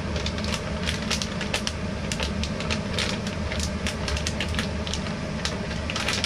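Plastic packaging pouch crinkling and crackling irregularly as gloved hands tear it open, over a steady low hum.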